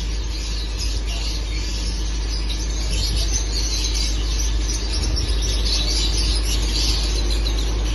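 Many lovebirds chattering together, a dense run of overlapping high chirps and squeaks.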